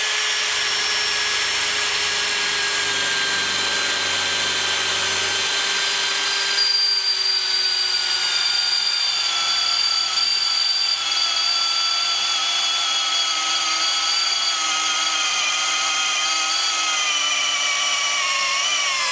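Ryobi ONE+ 18 V brushless drill driver running continuously under load with a 13 mm bit drilling into aluminium: a steady motor whine whose pitch sinks slowly as the drill is slowed by the cut, wavering near the end.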